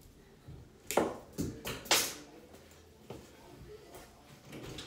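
Several sharp clicks and knocks from objects being handled, the two loudest about one and two seconds in, with fainter ones after.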